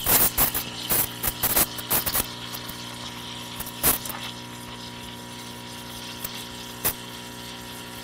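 Steam wand of an ECM Mechanika V Slim heat-exchanger espresso machine hissing into a 20-ounce pitcher of milk, with irregular clicks and crackles in the first two seconds and a couple more later. The machine's pump hums steadily underneath while an espresso shot brews.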